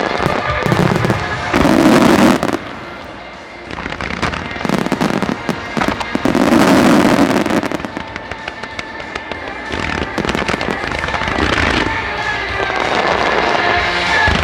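Starmine fireworks barrage: shells bursting and crackling in rapid succession over music from loudspeakers. The biggest bursts come about two seconds in and again around six to eight seconds.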